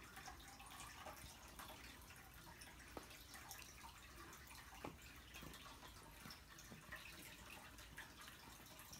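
Near silence, with a few faint soft ticks as a Bengal kitten's claws snag and pull at a cotton blanket.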